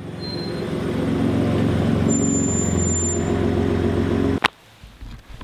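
Pickup truck engine running with a steady low hum that builds up over the first second, then cuts off abruptly with a sharp knock about four and a half seconds in.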